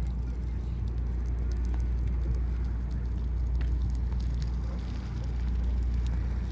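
Wind buffeting the microphone: a steady low rumble with a faint crackle over it.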